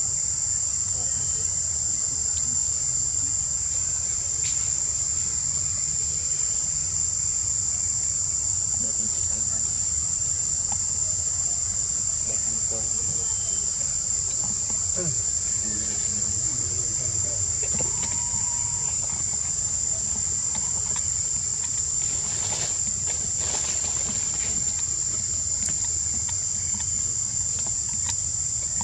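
Insect chorus in the forest: a steady, high-pitched drone that does not change, over a low rumble.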